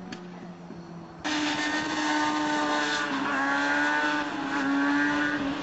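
Sportbike engine, faint at first, then suddenly much louder about a second in, running at high revs with its pitch dipping and rising again as the bike wheelies past.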